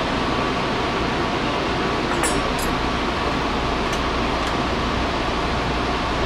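Steady rush and rumble of a moving Amtrak passenger train heard from inside the dining car, with a few light clinks of tableware about two seconds in and again around four seconds.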